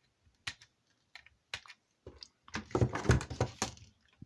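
Small plastic clicks and clattering from a hotspot's plastic casing being handled and pried apart: a few scattered clicks, then a denser, louder run of clicking about two and a half seconds in.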